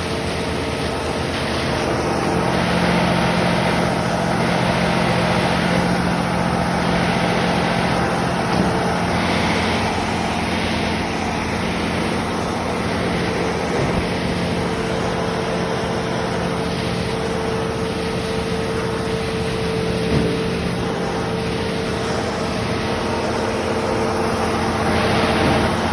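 Concrete pump running steadily, its engine humming under a faint regular pulse about every one and a half seconds from the pumping cycle.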